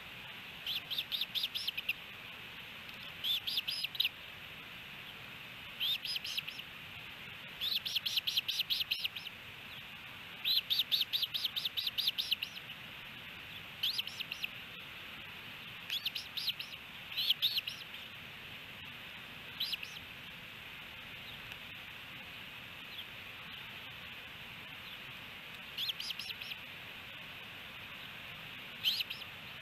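Osprey calling: short trains of rapid, high, piercing chirps, each about a second long, repeated every couple of seconds with a longer pause in the second half.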